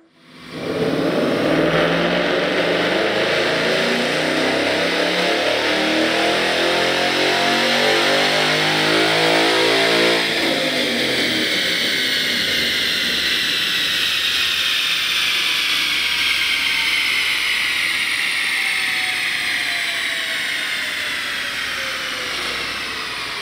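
A stock 2013 Ford Mustang GT's 5.0-litre Coyote V8 makes a wide-open-throttle dyno pull in fifth gear, revving steadily up from low rpm for about nine seconds. Then the throttle closes and the engine and drivetrain coast down, a falling whine that slowly dies away.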